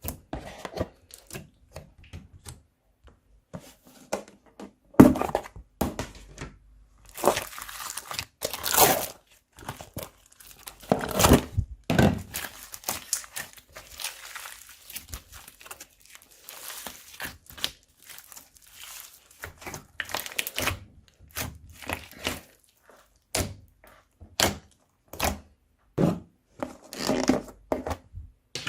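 Hands squishing and kneading slime mixed with crunchy foam: an irregular run of sticky clicks, pops and crackles, with a few longer crackling stretches where the slime is pressed and pulled.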